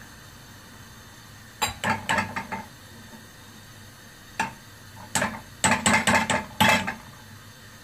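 A metal spoon clinks and scrapes against a non-stick kadai in two runs of quick ringing taps, the first about a second and a half in and the second from about five seconds in, with a single tap between them. A gas burner hisses steadily underneath.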